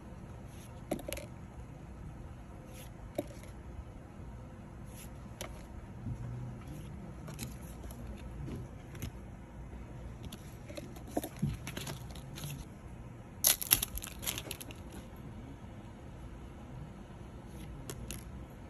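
Pokémon trading cards being handled and slid from one to the next between the fingers: scattered short papery clicks and scrapes, with a louder flurry of rustling about two-thirds of the way in.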